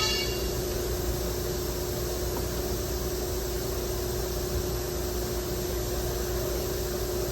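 Steady background noise: an even hiss with a constant low hum, and a brief high-pitched squeak right at the start.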